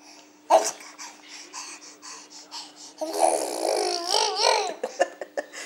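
Baby blowing raspberries and babbling: a sudden loud burst about half a second in, a run of short breathy puffs, then a longer vocal sound with a wavering pitch about three seconds in.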